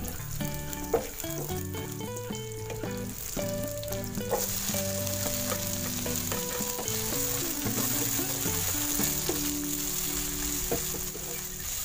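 Oil sizzling in a nonstick frying pan as shallots, garlic and spices are stir-fried with a spatula; a sharp spatula tap on the pan about a second in. The sizzle grows louder about four seconds in as chopped tomatoes and chillies go into the hot oil and are stirred. Background music with a melody plays throughout.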